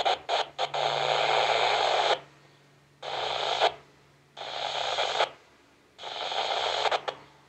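Yaesu FT-60 handheld radio's speaker receiving a UHF satcom channel on FM, giving four bursts of static hiss, each about one to two seconds long, with near-silent gaps between them as transmissions key up and drop. A few quick clicks come near the start.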